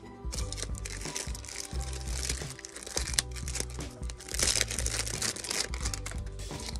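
Background music with a steady bass line, over the crinkling and rustling of a perfume box's packaging as it is handled and opened.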